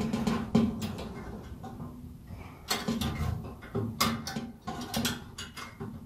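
Irregular clicks and knocks of hands working the wiring of a tumble dryer's heating element, pushing the push-on connectors onto the element's terminals inside the metal casing.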